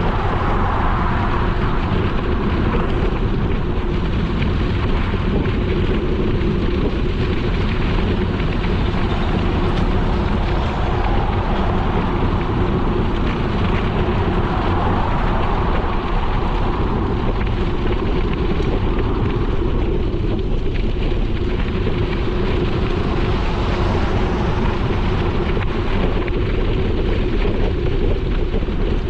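Steady wind noise on an action camera's microphone while cycling, mixed with bicycle tyres rolling and crunching over a dirt-and-gravel path.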